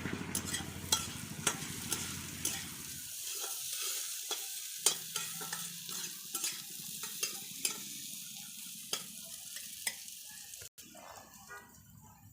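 Raw papaya curry frying and sizzling in hot oil while a spatula stirs it, with frequent sharp clicks and scrapes against the pan. The sound is quieter after a brief break near the end.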